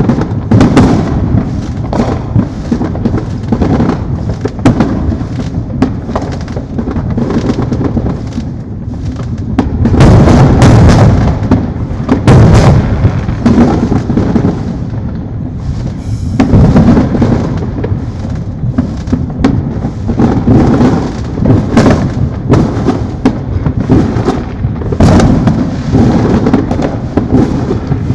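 Many fireworks going off at once in a continuous barrage of overlapping booms, pops and crackles, with no gap between them. It is heaviest about ten seconds in and swells again a few seconds later.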